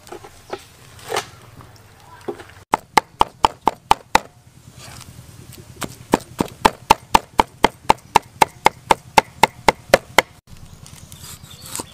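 Cleaver chopping rapidly on a wooden chopping block, mincing a soft fibrous mass. A short run of about seven strokes comes about three seconds in; after a pause, a longer steady run follows at about four strokes a second and stops suddenly near the end.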